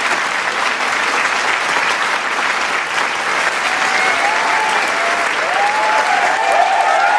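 Large crowd applauding, dense steady clapping, with cheers and shouts rising over it from about halfway through.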